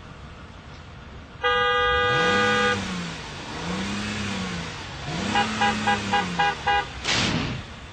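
A car's horn sounds in one steady blast of about a second, while the engine revs up and falls back three times. Then comes a quick run of about seven short horn toots, and a short rushing sound near the end.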